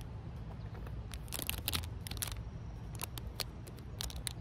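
Clear plastic packet of an enamel pin crinkling and clicking in the fingers as it is handled and turned over: a cluster of crackles about a second and a half in, and more around three and four seconds in, over a low steady rumble.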